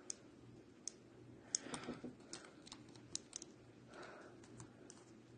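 Scattered faint clicks and light rubbing of a die-cast toy monster truck being handled, as a small part is pressed onto its front chassis.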